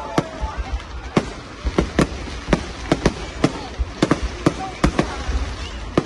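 Fireworks bursting overhead in an irregular series of sharp bangs, two or three a second, over a low rumble.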